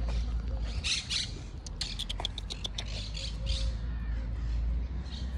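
Birds squawking and chattering, in short bursts with a quick run of sharp calls about two seconds in, over a steady low rumble.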